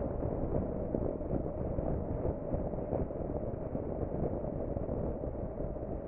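Steady low rush of wind and road noise from a Honda NC750X motorcycle riding along at speed, dull and muffled by wind-noise reduction.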